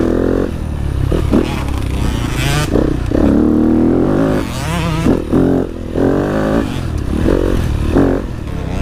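Dirt bike engine being ridden over a bumpy trail, its pitch rising and falling over and over as the throttle is opened and closed, with some clatter from the bike.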